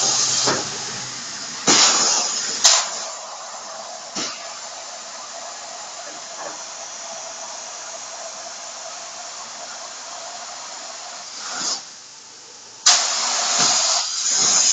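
Pneumatic NKR-100MPA underground drilling rig running on compressed air: loud blasts of air-exhaust hiss about two seconds in and again near the end, with a quieter steady hiss and a steady whine in between.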